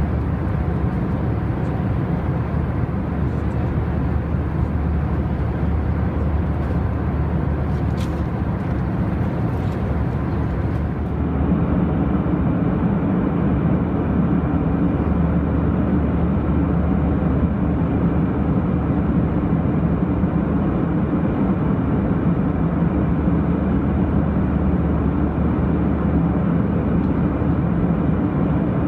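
Steady drone of an Airbus A320 in flight, heard inside the passenger cabin: engine and airflow noise with a low hum underneath. About eleven seconds in the sound changes abruptly to a deeper, duller drone with less hiss.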